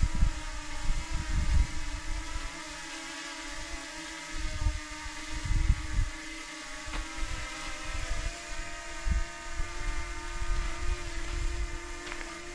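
DJI Mini 2 SE drone hovering, its propellers giving a steady whine, with gusts of wind buffeting the microphone.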